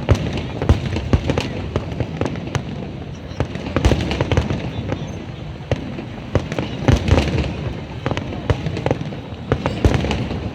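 An aerial fireworks display: shells bursting in quick succession, sharp bangs and crackles coming thick and fast, heaviest in clusters about four seconds in, around seven seconds and near the end.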